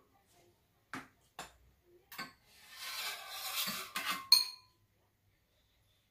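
Metal chopsticks and spoons clicking against bowls and a metal serving tray during a meal, with a second or so of crinkling rustle in the middle. It ends in one loud, ringing metal clink about four seconds in.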